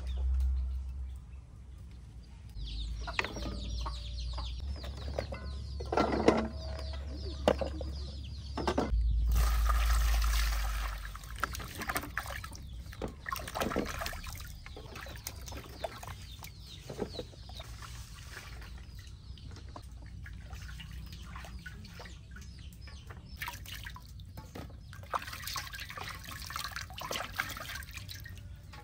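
Hands washing radishes, carrots and chili peppers in a metal basin of water: sloshing, splashing and rubbing, with a loud rush of water about ten seconds in. Hens cluck in the background.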